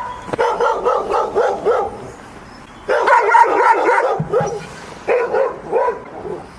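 A dog yipping and whining in three quick runs of short, high, wavering calls, with short pauses between them.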